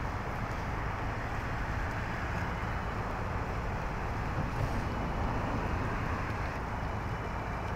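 Steady outdoor urban background noise: a low rumble of distant traffic with a constant hiss.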